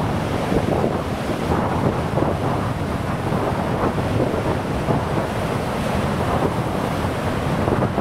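Rough sea surf with wind buffeting the microphone: a steady rushing noise with no single wave standing out.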